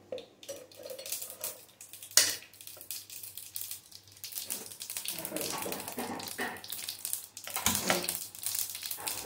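A single sharp metal clink of pot or lid about two seconds in, then mustard seeds crackling and popping in hot oil in a frying pan, growing denser in the second half.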